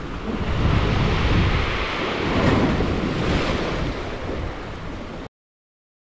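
Sea waves breaking and splashing over rocks and a concrete embankment, swelling and easing, with wind buffeting the microphone. The sound cuts off suddenly near the end.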